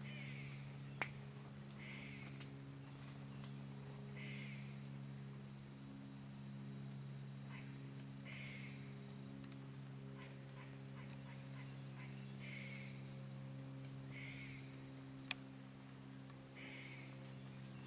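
Faint forest insects: a steady high drone with short high pulses repeating about once or twice a second, a bird calling every couple of seconds, and a few sharp ticks, the loudest about thirteen seconds in.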